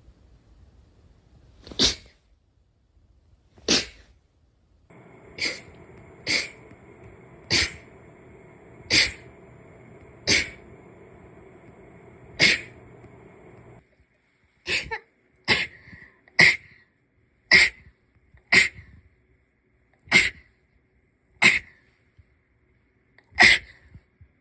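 A long run of short, sharp sneezes, more than a dozen, coming one after another about every second or two, with a few pairs closer together.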